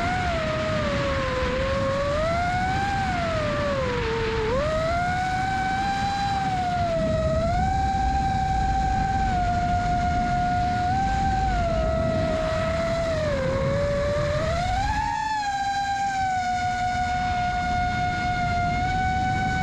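Brushless motors of an FPV quadcopter (iFlight XING2 2207 1855KV with HQProp Ethix S5 props) whining in flight, the pitch rising and falling with the throttle, over wind rumble on the camera's microphone. About fifteen seconds in the wind noise drops away and the motor pitch holds steady and slowly rises.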